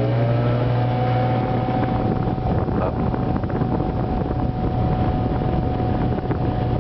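A 1987 Friedrich Quiet Master 22,000 BTU window air conditioner starting up: the fan motor's whine rises in pitch over the first second and then holds steady over loud rushing air and a low hum. The fan motor had seized and was freed by oiling, and it is slow to come up to speed.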